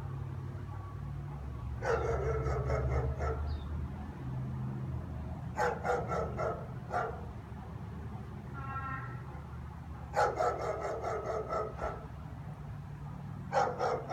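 German shepherds barking in four bouts of several quick barks each, over a steady low rumble. They are barking at nothing, with nobody on the street.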